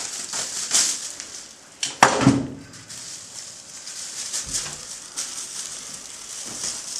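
Thin pre-taped plastic masking film rustling and crinkling as it is pulled along and pressed into place, with a sharp snap about two seconds in.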